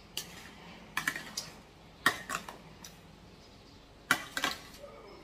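Spoon clicking and tapping against a bowl while the cooked lumpia filling is stirred, in short clusters of sharp clicks a second or two apart.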